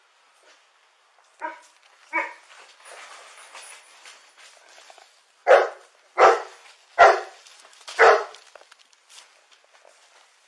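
Dog barking: two barks, then a run of four loud barks less than a second apart in the second half.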